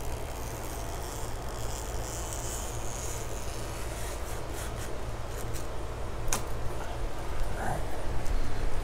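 Utility knife blade drawn along a screen track channel, slicing off the excess screen mesh: a steady scraping rasp, with a few sharp clicks and a rise in loudness near the end.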